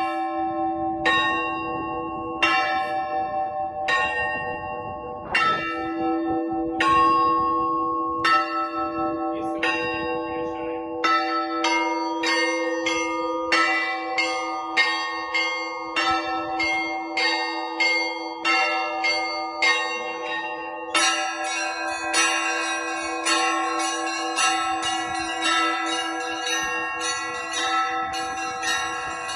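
Russian Orthodox church bells rung by hand from a bell tower: at first regular strokes about every second and a half over the long hum of the big bell, then from about eleven seconds in smaller bells join with quicker strikes, and from about twenty-one seconds in higher bells thicken it into a full, dense peal.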